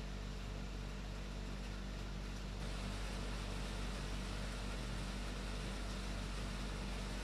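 A steady low hum with a faint hiss over it, unchanging apart from the hiss growing a little brighter about two and a half seconds in.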